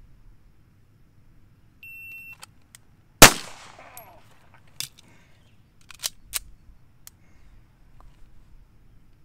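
A shot timer's electronic beep, then about a second later a single pistol shot with a ringing echo. A few sharp metallic clicks follow as the pistol is handled.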